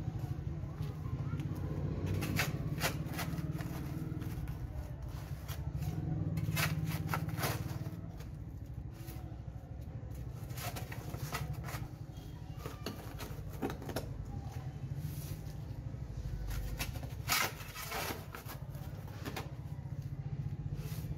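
Steel shovel blade scraping and digging into loose dirt and gravel on a concrete path, a scrape or strike every second or two, over a steady low hum.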